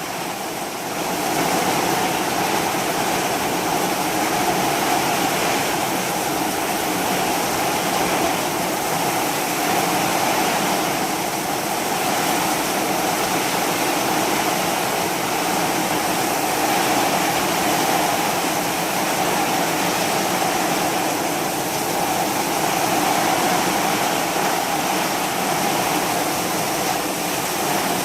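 Heavy rain pouring down steadily and continuously in a storm downpour.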